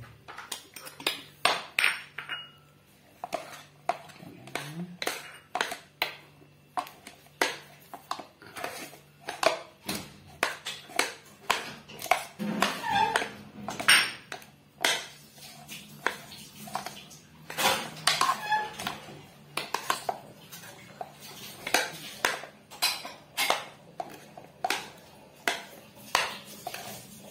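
Metal spoon knocking and scraping against a bowl while stirring mashed boiled cassava with salt and seasoning powder: a run of irregular clinks, about one or two a second.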